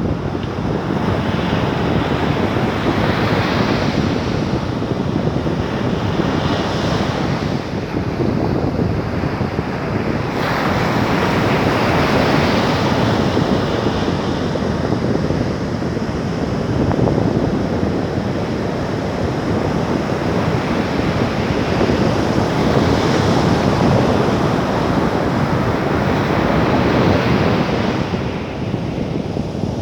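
Ocean surf breaking continuously, swelling in surges every few seconds, with wind rushing over the microphone.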